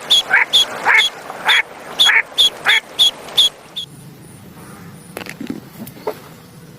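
Duck quacking in a rapid run of short, evenly spaced quacks that stops about four seconds in, followed by a few faint clicks.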